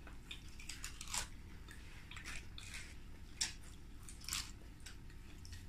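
People biting and chewing chicken wings: faint, irregular crunches and wet mouth clicks, a few each second.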